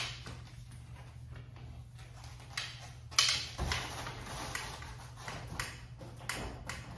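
A few light knocks, taps and rustles from a person climbing onto a full-suspension mountain bike and bracing a hand against a metal garage door. The loudest knock comes about three seconds in, followed by a soft thump.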